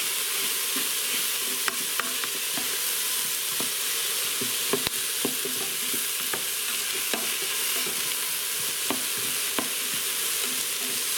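Diced onion, green bell pepper and carrots sizzling steadily in an electric pressure cooker pot on sauté, stirred with a plastic spoon that clicks and scrapes against the pot every second or so.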